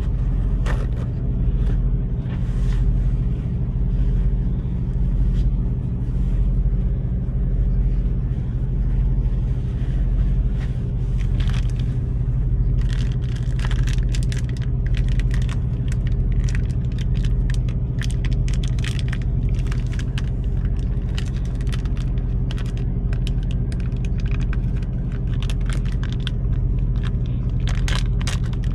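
Semi truck's diesel engine idling, a steady low rumble with a slow pulse, heard inside the sleeper cab. From about halfway, a plastic food wrapper crinkles and rustles in the hands, in quick bursts.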